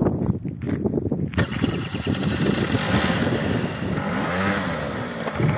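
Small moped scooter engine starting: it catches about a second and a half in, then runs with its revs rising and falling.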